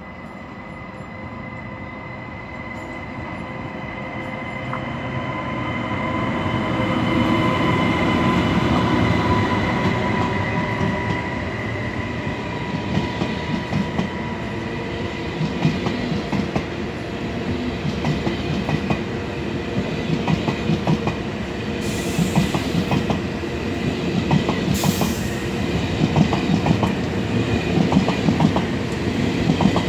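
Deutsche Bahn ICE 1 (class 401) high-speed train approaching and rolling past close by. A steady whine grows louder over the first several seconds, then the wheels clack rhythmically over the rail joints. Two short hisses come in the last third.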